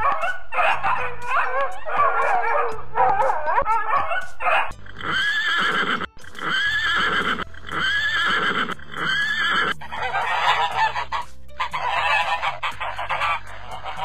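A run of animal calls over background music. It opens with wavering cries, then a horse whinnies four times in a row, and geese honk near the end.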